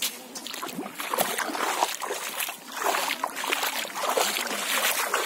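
Shallow river water splashing and sloshing unevenly as someone wades through it.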